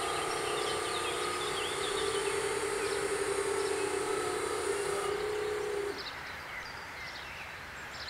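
Level-crossing barrier drive motors running with a steady whine as the booms rise, cutting off about five to six seconds in when the booms reach upright. Birds chirp briefly now and then.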